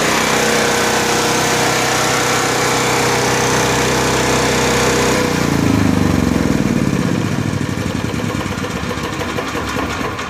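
Honda EV4000 RV generator engine running steadily and very noisy, then switched off about five seconds in. Its pitch falls as the engine winds down, and its running noise fades over the last few seconds.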